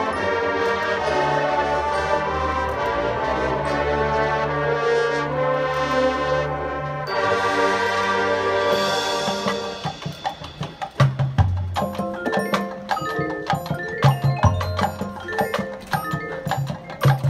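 Marching band playing: full brass and wind chords held for the first ten seconds or so, then the percussion takes over with sharp, rhythmic hits and short ringing notes over deep drum strokes.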